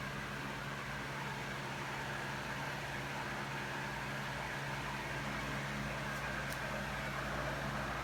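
Steady low machine hum with a faint higher whine and hiss, unchanging throughout: background room noise of the kind a fan or air conditioner makes.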